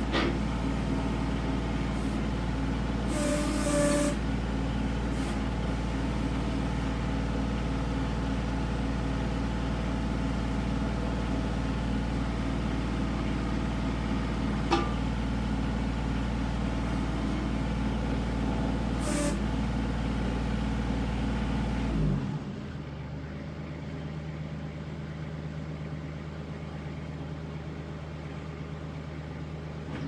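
Kubota L3700SU compact tractor's diesel engine running steadily at raised throttle while it powers the backhoe hydraulics, with a brief hiss a few seconds in and a couple of sharp clicks later. About three-quarters of the way through, the engine drops to a lower, quieter idle.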